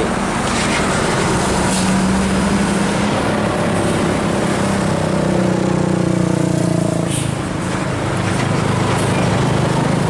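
Diesel engines of large tour buses and a truck running past at close range, a steady low engine drone with road noise.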